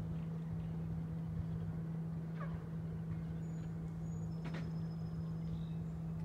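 A steady low mechanical hum from an unseen machine, with a faint short rising chirp about two and a half seconds in and a sharp tick a little past the middle.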